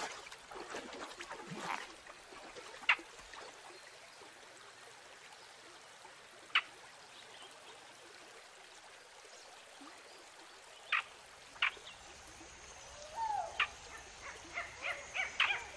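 Water trickling and dripping as a cast fishing net is drawn out of a river, with a few sharp clicks or drips spaced several seconds apart. Near the end come several short animal calls.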